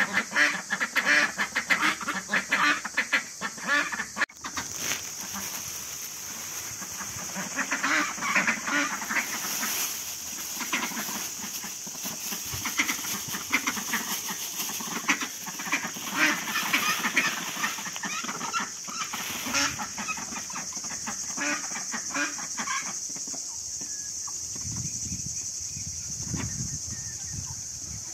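Hungry domestic ducks quacking loudly and repeatedly in a flock as they wait for and get their feed. A steady high hiss sets in about four seconds in. The calls thin out and soften in the last few seconds as the birds start eating.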